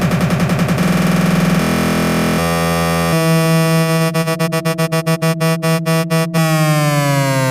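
Techno breakdown on a synthesizer: the beat drops out for a held drone that steps up through several notes. It is then chopped into a quickening stutter and, near the end, glides steadily down in pitch.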